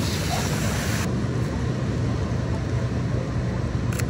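City traffic on wet night streets: a steady low rumble of passing vehicles with a hiss of tyres and rain that drops away abruptly about a second in. A single sharp camera-shutter click comes near the end.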